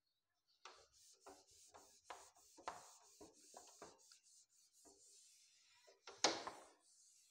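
Whiteboard eraser rubbing across the board in a series of short strokes, with a louder stroke about six seconds in.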